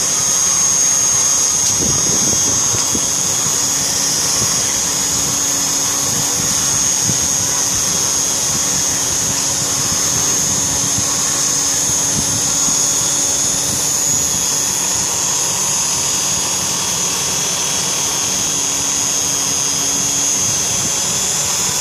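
Spindle motor of a pantograph nameplate engraving machine running steadily with a high whine while the cutter engraves a plate; a lower hum underneath drops out about a second before the end.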